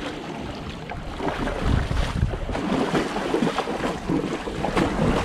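Lake water sloshing and splashing around two ponies' legs as they wade in the shallows. Wind buffets the microphone, louder from about a second in.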